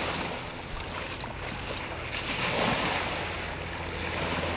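Small waves washing onto a sandy shore, with wind buffeting the microphone as a steady low rumble. The surf swells about halfway through.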